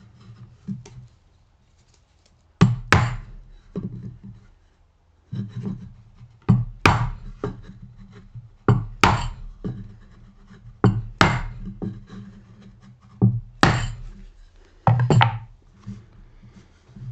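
Mallet blows knocking a hand-cut angled dovetail joint together: sharp separate wooden knocks, some in quick pairs, every second or two as the joint is driven home and seated.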